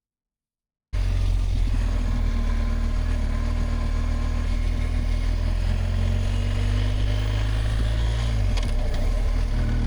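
BMW R 1250 GS boxer-twin engine running steadily. It cuts in suddenly about a second in, and its low note shifts briefly near the end.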